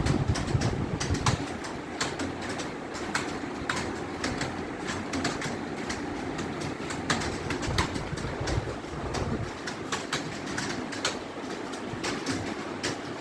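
Fast typing on an Acer computer keyboard: a steady run of key clicks at an uneven pace, several a second.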